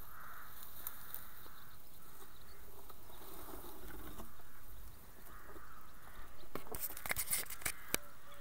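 Rustling of dry cereal stalks against a model glider's fuselage and wings, with a run of sharp clicks and knocks in the last couple of seconds as the glider is grabbed and lifted by hand. Underneath is a faint outdoor background with distant bird calls.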